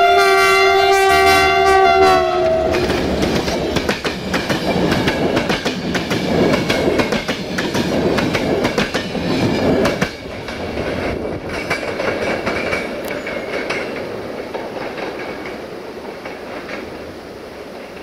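Diesel locomotive horn blowing a sustained tone, dipping in pitch and cutting off about two and a half seconds in as the locomotive passes close by. Then the rumble and clickety-clack of the locomotive and its passenger coaches going past, with a drop in level about ten seconds in and fading as the train moves away.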